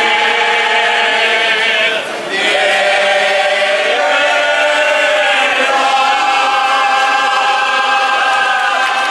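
Choir singing together in harmony, with a brief break about two seconds in, then a long held chord that closes the song.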